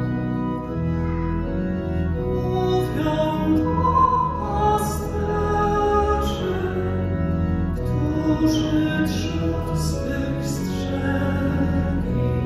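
Church organ accompanying a congregation singing a Polish Christmas carol (kolęda), the organ's held chords under the voices.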